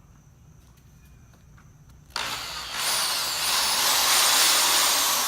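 A power drill starts about two seconds in and runs hard with a high whine, widening a mounting hole in a car's front chin spoiler.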